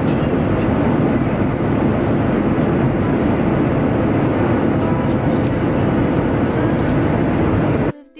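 Steady airliner cabin noise in flight, an even low rumble and rush of engines and airflow. It cuts off suddenly near the end, where ukulele music begins.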